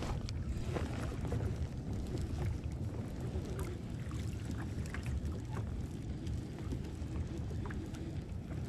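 Small waves lapping against a kayak's hull with a steady low rumble of wind on the microphone, and scattered faint ticks as a conventional fishing reel is cranked in.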